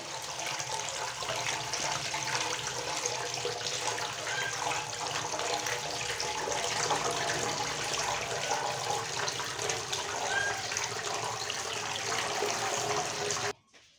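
Tap water running onto raw chicken pieces in a plastic colander in a sink, with hands rubbing and turning the wet pieces as they are rinsed. The steady running water cuts off abruptly near the end.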